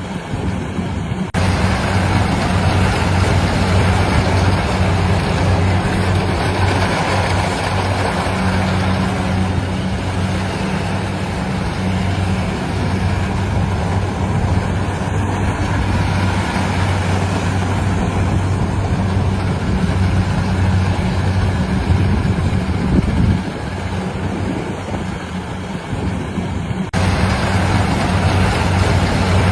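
Engine of a rice harvesting machine running steadily with a low hum and a broad mechanical rush. The level jumps abruptly about a second in and drops back near the end.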